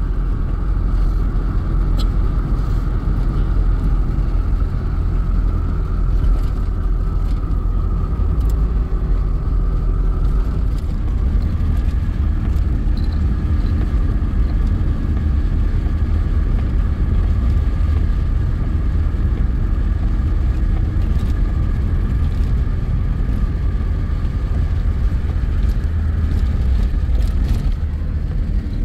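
A car running, a steady low rumble of engine and road noise, its tone shifting slightly about eleven seconds in.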